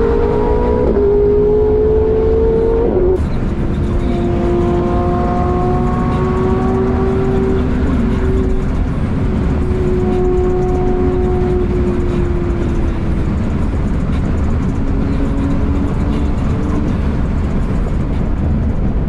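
BMW E36 320i's straight-six engine heard from inside the cabin, pulling hard: its note rises for about three seconds, drops sharply with an upshift, then climbs slowly and evenly in the higher gear, over steady wind and road noise.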